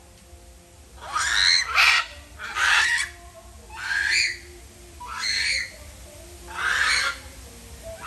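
Macaws squawking: a series of about six loud, harsh calls, one every second or so, starting about a second in.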